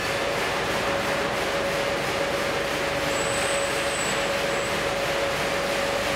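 Water jets spraying onto a tram's body and rotating wash brushes in an automatic tram wash: a steady rushing hiss with a steady hum from the wash machinery underneath.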